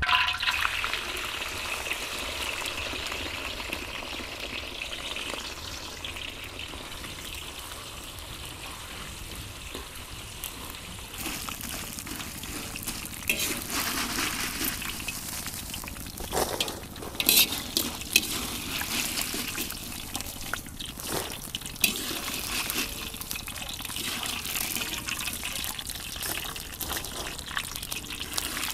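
Liquid trickling and splashing in a steady hiss. From about eleven seconds in, scattered clicks and knocks join it.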